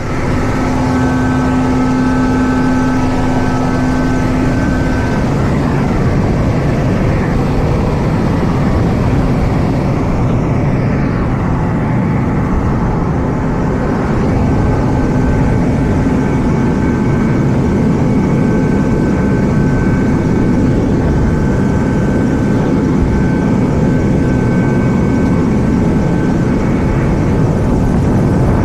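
Twin-turbine AW189 helicopter running on a ship's helideck with rotors turning: a steady, loud rotor and turbine rush with a thin high whine over it. The sound jumps sharply in loudness at the very start.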